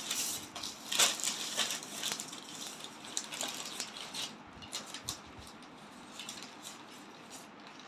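Clear plastic sheeting and paper crinkling and rustling in a small child's hands, a busy crackle loudest about a second in that thins out over the second half.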